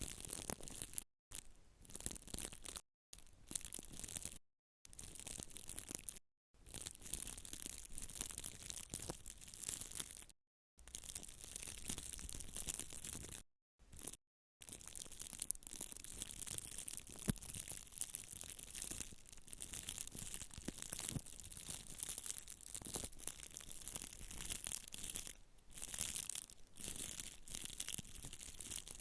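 Close-miked ASMR scratching and rustling in short, dense strokes, dry and bright. Several abrupt dead-silent gaps break it up in the first half, and it runs on without breaks from about halfway.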